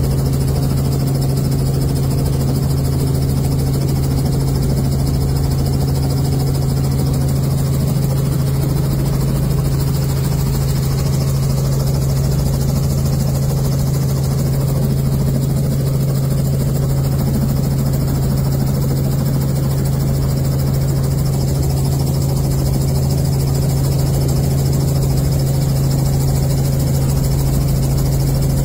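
Robinson R44 helicopter running on the ground during a tail rotor balance run, its engine and rotors heard from inside the cabin as a steady drone with a strong low hum that does not change.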